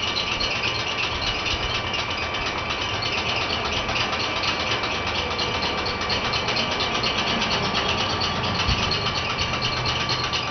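Vacuum cleaner running steadily: a constant whine over the rush of air through its hose and nozzle.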